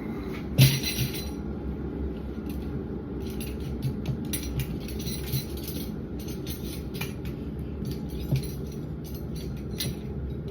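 Washed metal cutlery clinking and clattering as it is laid out piece by piece on a tea towel to dry, with a louder clatter just over half a second in and another about eight seconds in, over a steady low hum.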